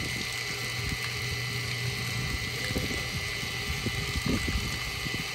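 A steady mechanical hum with a constant thin high tone, over scattered irregular low knocks.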